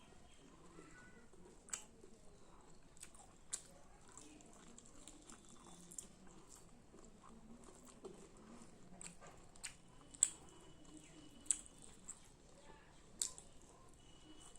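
A person chewing food close to the microphone, with sharp mouth smacks and clicks every second or two, the loudest about ten seconds in.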